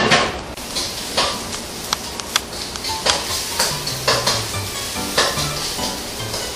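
Food sizzling in a hot wok while a metal ladle stirs it, with irregular knocks and scrapes of metal on the pan.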